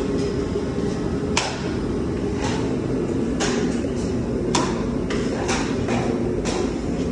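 A drywall knife scraping and clicking against the edge of a mud pan as joint compound is loaded and wiped off, several short sharp strokes spaced about a second apart, over a steady low hum.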